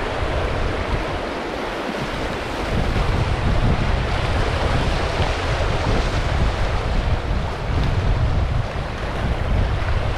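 Steady rush of river water, with wind buffeting the microphone in a low rumble that rises and falls and eases briefly about a second in.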